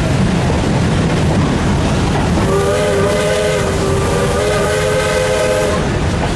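A steam locomotive's whistle blows one long blast of several notes at once, starting about two and a half seconds in and lasting about three seconds. Under it runs the steady rumble of the moving train.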